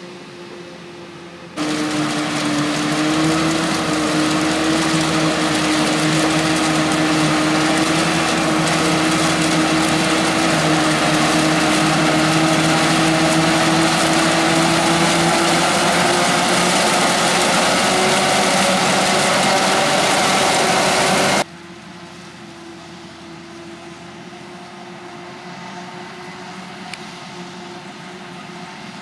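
Heavy farm machinery working in a maize harvest: a large diesel engine runs steadily at high load under a broad mechanical roar. It comes in abruptly about a second and a half in and cuts off abruptly about 21 seconds in, leaving a quieter distant machine hum.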